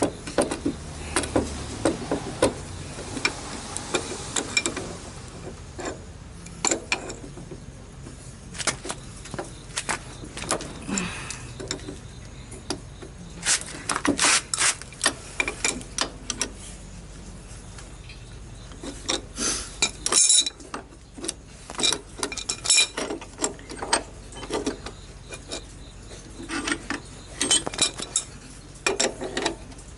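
Adjustable steel wrench and brass water valve in a bench vise clinking and scraping as the valve is worked and unscrewed from its fitting: irregular metal clicks and taps in several bunches.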